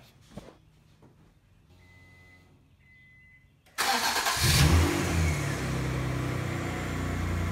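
Acura Legend 2.7-litre V6 engine starting for the first time since its new timing belt and water pump were fitted. A faint high tone sounds twice with the ignition on. About four seconds in, the engine cranks and catches almost at once, flares up briefly, then settles into a steady idle.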